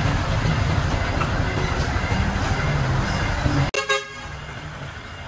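Hoa Mai light dump truck's diesel engine running loud and close as the truck drives past, with a short horn toot near the end, after which the sound drops away.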